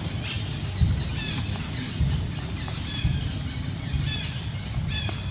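Short, high animal calls, each falling in pitch, come in small groups about once a second over a low background rumble.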